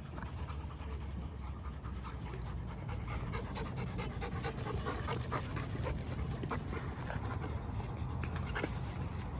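Dogs panting close by, with scattered light clicks over a steady low rumble.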